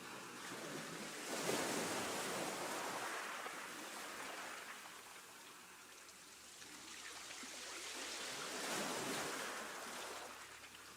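Choppy sea wash: two louder surges of water, one about one and a half seconds in and another near the end, with a lower, steady wash between them.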